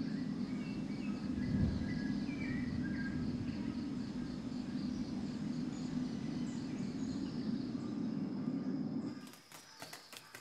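Tropical rainforest ambience: a steady low rumbling noise with a high, rapidly pulsing trill and a few short bird chirps over it. About nine seconds in it drops away to a quieter background with scattered light ticks.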